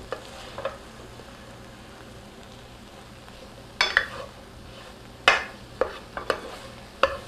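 A spoon stirring sautéed onions, bell pepper and spices in a stainless steel skillet, scraping and knocking against the pan now and then, mostly in the second half, over a low steady sizzle.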